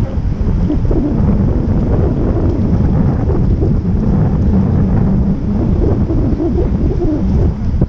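Wind buffeting the microphone of a camera on a moving bicycle: a loud, steady low rumble.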